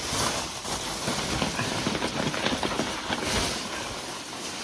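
Packing material rustling and crinkling as hands dig through a shipping box, a steady crackle of many small clicks.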